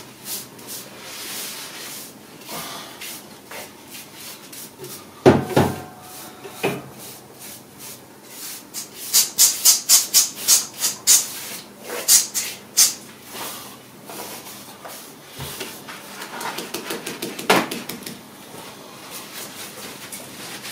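Scrubbing on a stove's glass door, cloth and pad rubbing in quick hissy strokes, about three a second at the busiest stretch, with two knocks about five seconds in.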